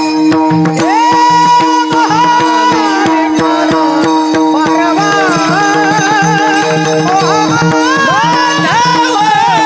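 Varkari kirtan music: a woman's voice singing long, ornamented gliding notes over a steady drone, with pakhawaj drum strokes and small hand cymbals keeping time.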